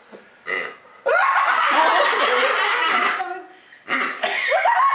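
A group of people laughing together, in two loud spells that start about a second in and again near four seconds, after a short laugh about half a second in.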